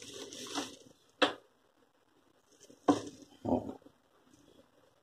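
Plastic packaging rustling as a pair of small laptop speakers and their cables are handled, then a sharp click and two short knocks as the speakers are set down on a desk.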